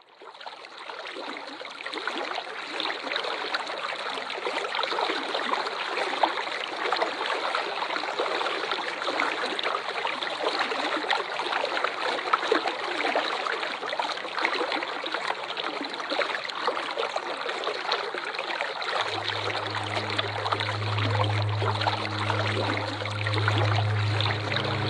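Waterfall water splashing and rushing steadily, fading in at the start. About two-thirds of the way through, a low steady drone joins it.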